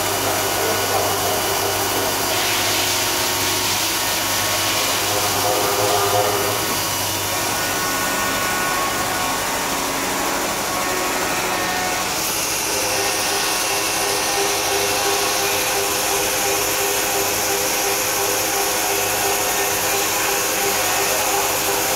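CNC profile machining center milling an aluminum extrusion: a steady spindle whine with several held tones over the cutting noise and a hiss from the coolant spray. About halfway through, the sound shifts and the high hiss grows louder.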